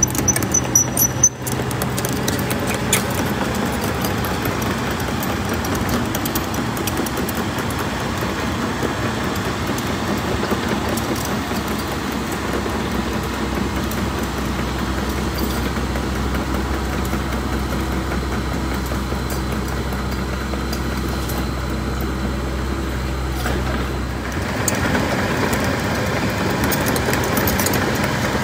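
Komatsu compact excavator's diesel engine running steadily as the machine works. Its low note shifts deeper about halfway through and changes again a few seconds before the end. A few sharp knocks come about a second in.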